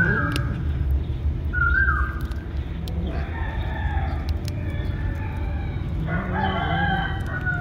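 Cat chewing and crunching a cooked chicken carcass, with scattered sharp crunches. Birds call repeatedly in the background, short pitched calls at the start and again about two seconds in, with more calling near the end.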